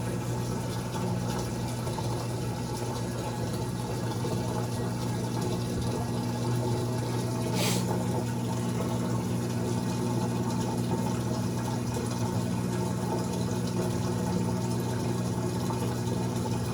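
Amana top-load washing machine's drain pump running with a steady hum as water drains out of the tub, during the spin-and-drain stage of its diagnostic test cycle. A short hiss sounds about eight seconds in.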